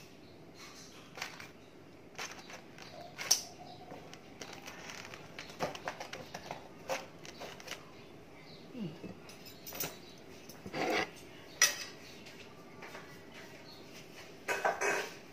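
Metal serving tongs clicking and clinking against a serving tray and plate as food is picked up and served, in irregular scattered clinks.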